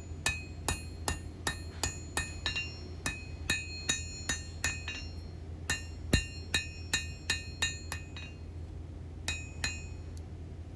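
A hand hammer striking hot high-carbon steel bar on an anvil to flatten and even out a knife handle, about two to three blows a second, each followed by a brief metallic ring. The blows pause briefly twice.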